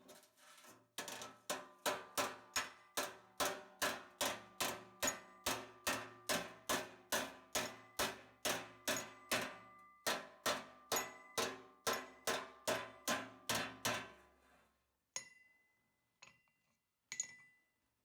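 Background music with a steady struck beat, about three notes a second, which stops about fourteen seconds in; a few separate sharp metallic taps follow near the end.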